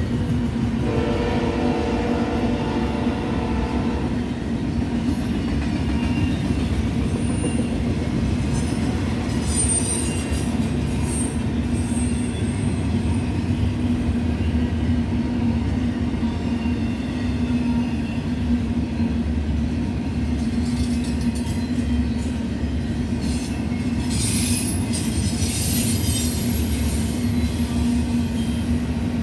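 Double-stack intermodal freight train cars rolling past at speed: a steady rumble and rattle of steel wheels on the rails. A brief pitched tone sounds in the first few seconds, and a bout of high wheel squealing comes about 24 seconds in.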